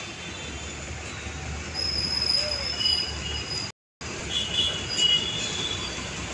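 Steady outdoor background rumble with a few thin, high squealing tones that each hold for about a second; the sound drops out completely for a moment a little before four seconds in.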